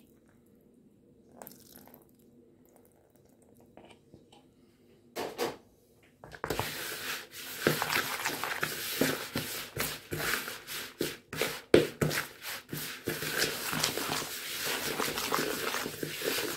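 Quiet at first, then from about six seconds in, a spoon stirring and scraping stiff oatmeal biscuit dough around a mixing bowl: a continuous rough scraping with frequent sharp clicks and knocks.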